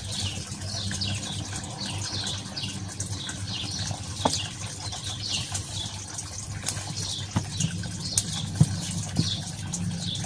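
Small birds chirping continuously: short, falling chirps several times a second. Underneath runs a steady low hum, with a few light taps.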